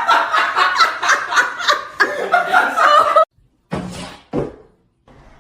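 A person laughing in quick, high-pitched, repeated bursts that cut off suddenly about three seconds in, followed by two short sounds.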